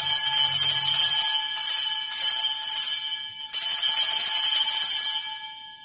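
Sanctus bells, a cluster of small altar bells, shaken in two bursts of bright ringing. The second burst starts about three and a half seconds in, and the ringing dies away near the end. They are rung at the elevation of the host, right after the words of consecration over the bread.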